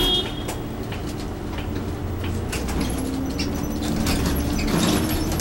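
Interior of a Nissan Diesel Space Runner UA city bus under way: a steady low engine drone, with rattling and clicking of the cabin fittings throughout.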